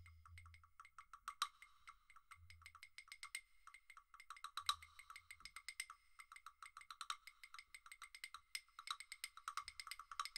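Two pairs of wooden claves struck by two players in a fast interlocking rhythm: a quick, steady stream of sharp, dry, ringing clicks, several to the second.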